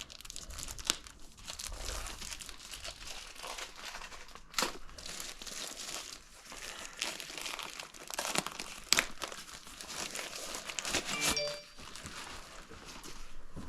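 Packaging and accessories being handled: continuous crinkling and rustling with sharp clicks and knocks, and a brief high tone late on.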